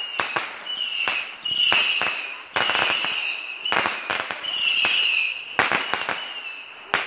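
Consumer fireworks going off in rapid succession: a string of sharp bangs, one or two a second, with short high whistling tones between them.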